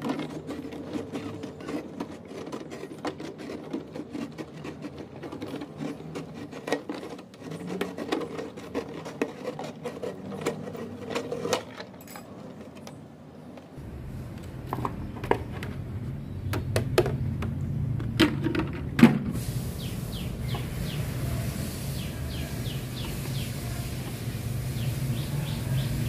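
A knife blade cutting through a large thin-walled plastic water bottle, a dense run of small crackling clicks as the plastic gives. From about halfway the cutting stops and the plastic halves are handled, a few sharp knocks and crinkles over a steady low rumble.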